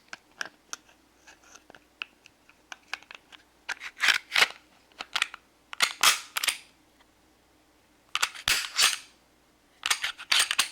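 Glock 30 pistol's slide being worked back onto its frame during reassembly: a run of sharp metallic clicks and short scraping slides, in irregular clusters with pauses between.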